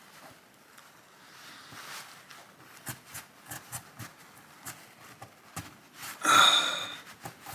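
Faint scraping and small scattered clicks as a cotton swab is worked around the bolt face and extractor recess of a Carcano rifle bolt, cleaning out grit and old grease. About six seconds in comes one louder, breathy sound lasting under a second.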